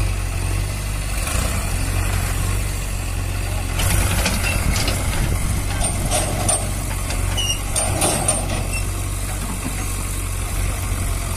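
New Holland 3600-2 tractor's diesel engine running steadily as it pulls a heavily loaded sand trolley. Clattering knocks come about four seconds in and again near eight seconds.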